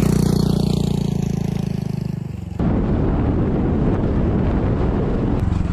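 Honda Super Cub 125's single-cylinder engine running steadily, then, after about two and a half seconds, an abrupt switch to loud wind buffeting on the microphone as the motorcycle is ridden, with the engine's tone coming back through near the end.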